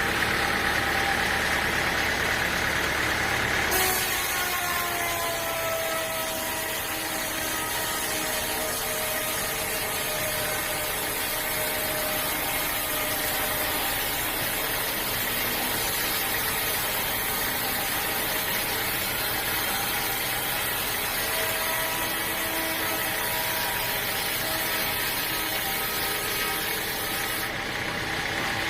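Engine-driven sawmill cutting through a log. About four seconds in the blade bites into the wood, adding a high hiss, and the engine's pitch sags under the load. The cut runs on until near the end, when the sound drops back to the engine running unloaded.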